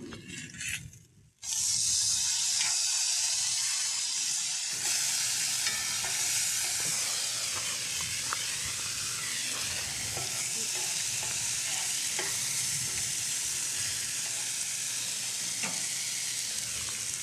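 Thick-cut bacon frying in a cast-iron skillet. There are a few clicks of metal tongs turning the strips at first, then a loud, steady sizzle with small crackles starts abruptly about a second and a half in.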